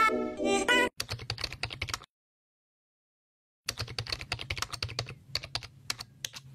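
Computer keyboard typing sound effect: rapid clicking keystrokes for about a second, a pause of nearly two seconds, then about three more seconds of typing. A music sting ends about a second in, just before the typing starts.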